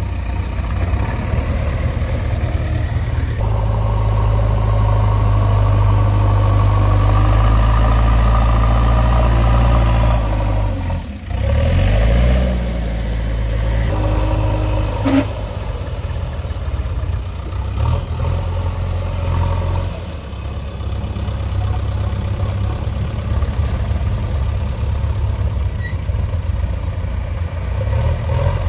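Diesel engine of a JCB 3DX backhoe loader running, working harder for several seconds, then easing off briefly near the middle. A single sharp knock sounds about halfway through.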